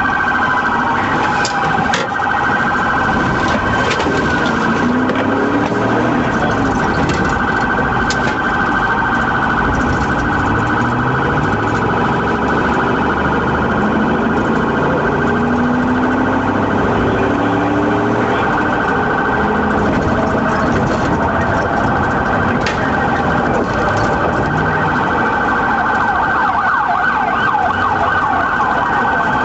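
Police siren sounding continuously during a high-speed pursuit, switching to a fast yelp near the end, with engine and road noise underneath.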